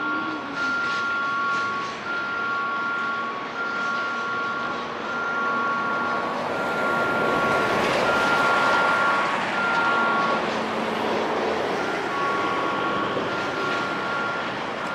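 Freight train rolling slowly through the yard, its running noise swelling around the middle. Throughout, a two-note electronic warning tone sounds in repeated pulses of about a second each, with a break shortly after the middle.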